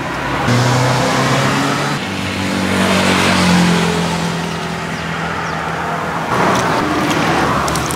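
A motor vehicle's engine running close by, its pitch rising and then falling about three seconds in, over a steady rushing hiss.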